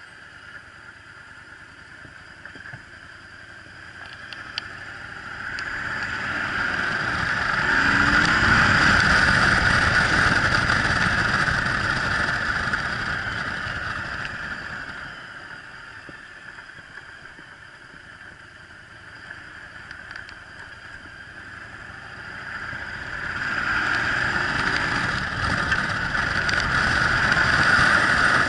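Yamaha Drag Star 1100's air-cooled V-twin engine running while the motorcycle is ridden. The running noise grows louder twice, about six seconds in and again about twenty-three seconds in, and eases off between.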